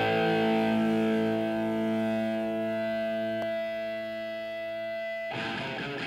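Intro music: a distorted electric guitar chord held and slowly fading, then a new chord struck about five seconds in.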